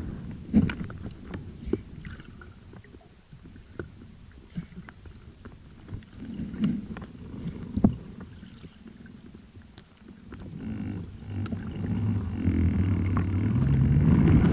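Muffled underwater sound picked up by a camera on a swimmer kicking with fins: water churning and low rumbling, with scattered clicks and knocks. A low hum climbs in pitch and grows louder over the last few seconds.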